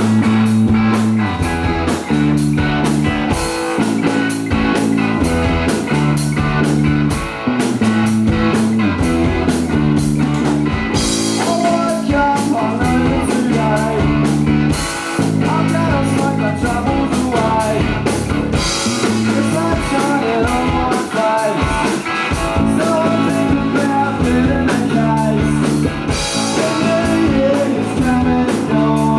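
Live rock band playing: a drum kit keeps a steady beat under a repeating bass line and electric guitar, with a melodic lead line weaving above from partway through.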